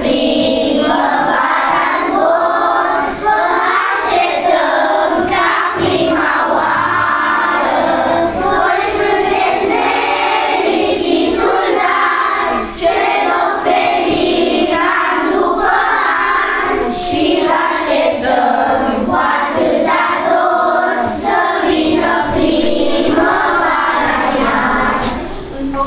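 A class of young children singing a song together in chorus.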